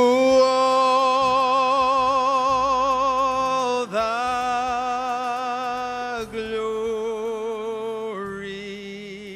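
Music made of long held notes with a wavering vibrato. The pitch changes three times, and the music fades out gradually toward the end.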